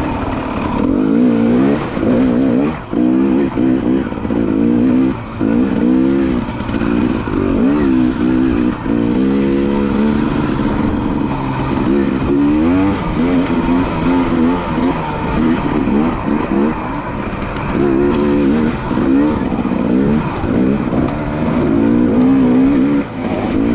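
Dirt bike engine revving up and down over and over, its pitch rising and falling every second or so, with a few brief dips in loudness.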